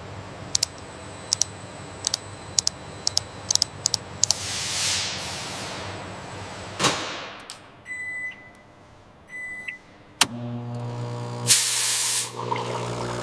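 Keys on an industrial control console clicking, about nine sharp presses each with a faint electronic tone, followed by two swishes and two short high beeps. Then a thump, a steady machine hum, and near the end a loud burst of steam hissing from a coffee machine.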